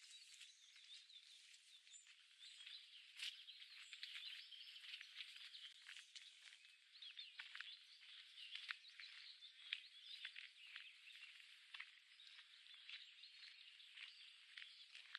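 Faint chorus of many small songbirds singing and chirping at once, with a few light ticks scattered through it.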